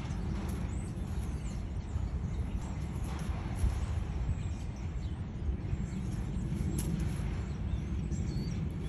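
Steady low outdoor rumble, with a few faint bird chirps and light clicks over it.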